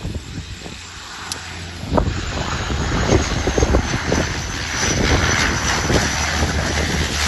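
De Havilland Canada DHC-6-300 Twin Otter's twin turboprop engines and propellers on a landing approach. The sound grows louder about two seconds in as the plane comes close, then holds as a steady drone. Wind buffets the microphone.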